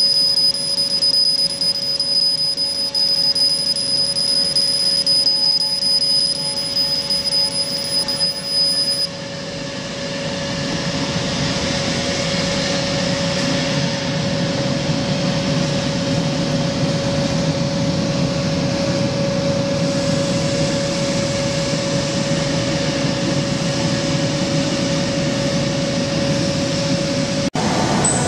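CO2 galvo laser cutting machine running while it cuts paper: a steady rushing machine noise under a constant mid-pitched hum, with a thin high whine that stops about nine seconds in, after which the rush grows louder. Near the end the sound cuts out for an instant and a different high tone comes in.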